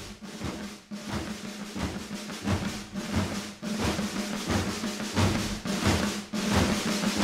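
Background music: a drum intro with a steady beat and a held low note, growing louder.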